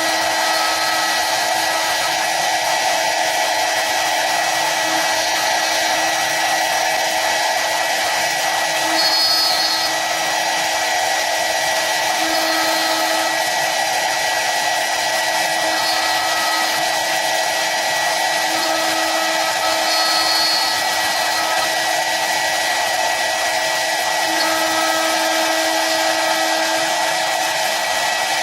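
CNC wood lathe running, a steady mechanical whir with a constant high tone and a lower hum that shifts briefly every few seconds.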